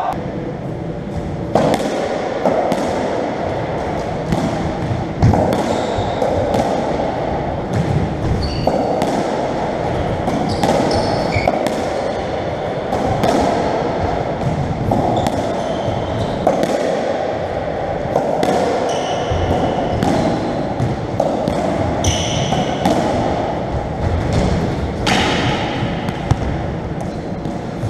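Racketball rally on a squash court: the ball smacking off racquets and the court walls again and again at irregular intervals, with short squeaks of shoes on the wooden floor, echoing in the enclosed court.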